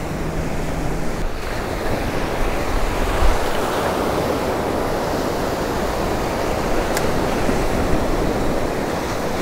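Ocean surf breaking and washing around the shallows in a steady rush.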